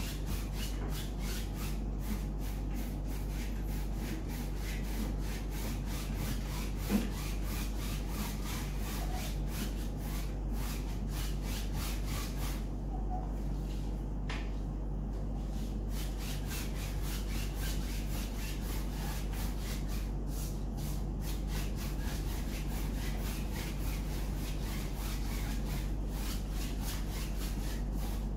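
Paintbrush scrubbing paint onto a large stretched canvas: a steady run of quick rubbing strokes, over a low steady hum, with one brief knock about seven seconds in.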